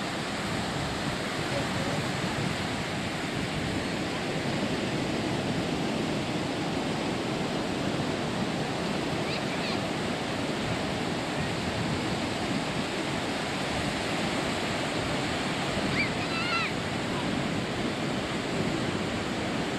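Ocean surf breaking on a beach: a steady rush of waves.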